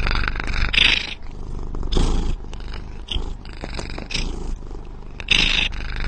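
A cat biting and chewing on a small metal microphone held in its mouth. Scratchy crunches of its teeth on the mic come about five times, over a low steady purr picked up through the microphone.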